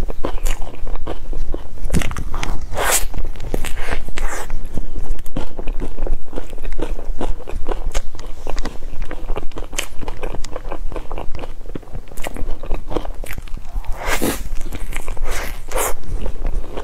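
Close-miked biting and chewing of a soft crepe-wrapped dessert: dense small mouth clicks and smacks, with a few longer, louder bites and chews about three seconds in and again near the end.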